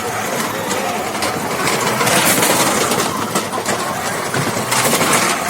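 Loud, steady mechanical noise from a combat robot's electric drive or weapon motors running, with faint voices underneath.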